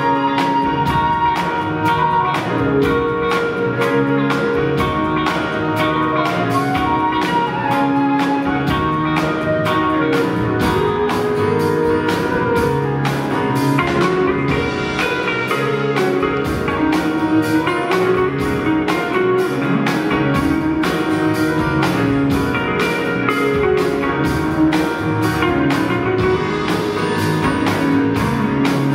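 Live band playing an instrumental break: a flute melody over acoustic guitar and drum kit, with a solid-body electric guitar taking the lead partway through.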